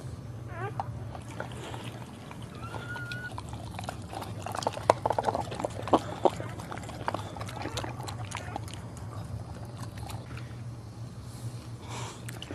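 Mother dog licking a newborn puppy and its birth sac: wet slurping and smacking, busiest a few seconds in. A short thin whine is heard once or twice early on, all over a steady low hum.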